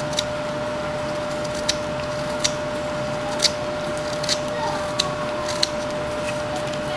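Whittling knife cutting chips from a wooden carving: about seven short, crisp cuts at uneven intervals, over a steady background hum.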